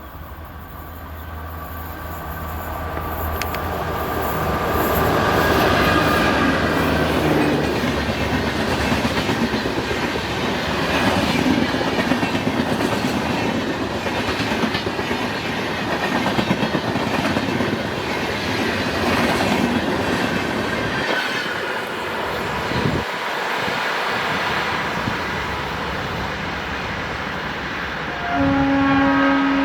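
Express passenger train hauled by a WAP-4 electric locomotive passing at speed, its wheels clattering rhythmically over the rail joints, building up over the first few seconds and staying loud. A horn blast sounds near the end.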